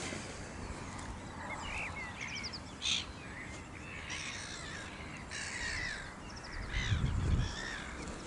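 Birds calling: short calls that rise and fall in pitch and quick high trills, one louder call about three seconds in. A brief low rumble near the end.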